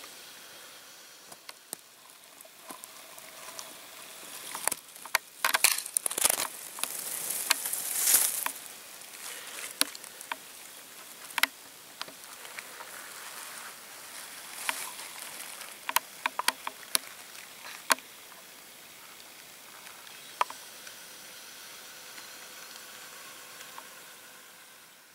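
Rustling and scattered sharp clicks from a handheld camera being moved about over low heather, busiest in a stretch of rustling a few seconds in.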